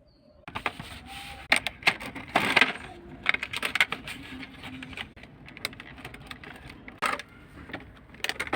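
Packaging being opened and handled: irregular sharp plastic clicks and rattles among crinkling, thickest in the first four seconds and again near the end.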